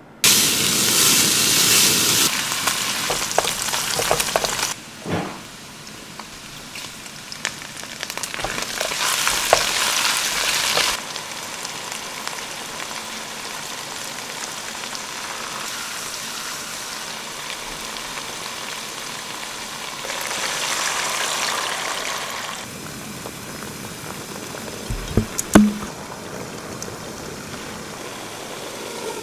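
Diced pork belly and then sauce and glass noodles sizzling and frying in a hot nonstick wok. It is loudest as the pork goes in at the start, swells again twice, and has a few sharp knocks along the way.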